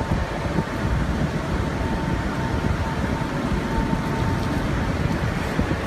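Storm wind buffeting a phone's microphone over rushing rain and floodwater: a steady, dense rumble and hiss. A faint steady tone sits underneath until about three-quarters of the way through.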